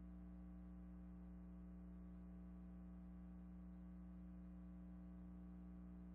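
Near silence: a faint, steady electrical hum with no other sound.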